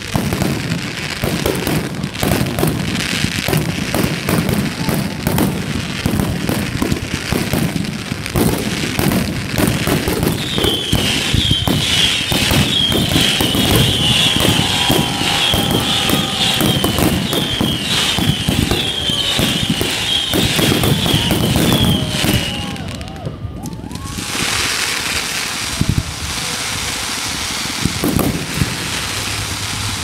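Fireworks barrage: a rapid, dense string of aerial shell bangs and crackles. A high warbling whistle-like tone runs through the middle. About 23 seconds in, the bangs thin out to a steady hiss with only occasional reports.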